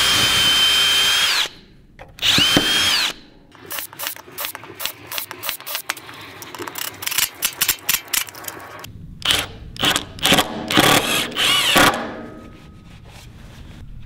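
Kobalt 24-volt cordless drill boring pilot holes through a steel framing hanger into a lumber board, with two steady whining runs in the first three seconds. Then a cordless driver sets the anchor bolts in many short trigger bursts, followed by several longer runs whose whine rises as the tool speeds up.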